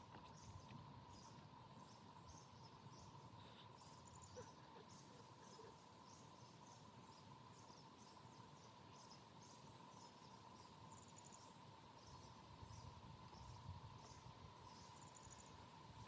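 Near silence outdoors: faint, quick high-pitched chirps of insects and birds repeating a couple of times a second, with a few short trills, over a faint steady hum.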